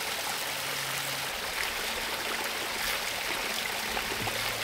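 Water pouring steadily from the open end of a 1-inch black poly supply pipe and splashing into a shallow creek pool: the siphon has been pulled and the pipe is running.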